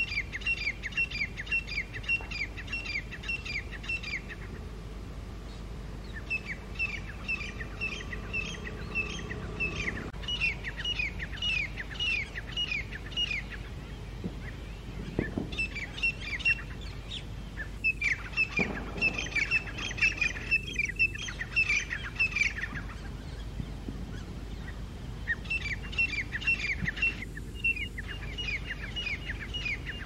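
Grey francolins (teetar) calling loudly, with rapid runs of repeated, high, slightly falling notes in bouts of several seconds, separated by short pauses. These are territorial challenge calls traded between rival groups.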